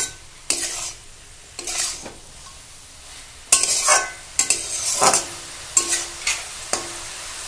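Spatula stirring and scraping through sautéed bottle gourd leaves and vegetables in a metal wok (kadai), in irregular strokes every half second to a second, over a soft sizzle of the cooking greens.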